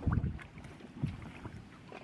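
Inflatable dinghy knocking against the sailboat's hull while lines are handled: a dull thump at the start and a smaller one about a second in, over wind buffeting the microphone.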